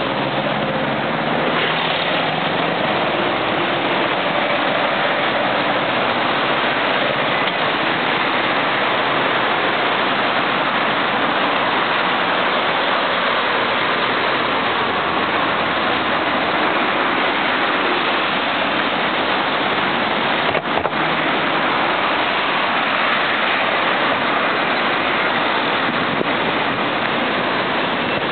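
Steady noise of heavy road traffic on a multi-lane city road, with cars, vans and motor scooters driving past close by.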